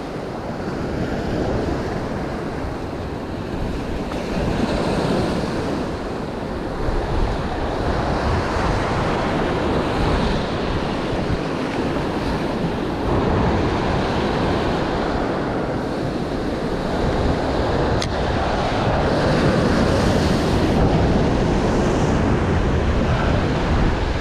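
Ocean surf washing and breaking against shoreline rocks, swelling and easing every few seconds, with wind buffeting the microphone.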